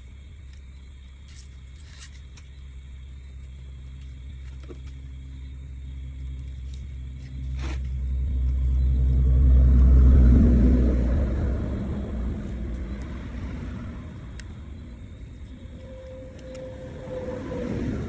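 A motor vehicle passing by: a low engine rumble that swells to its loudest about ten seconds in and then fades away.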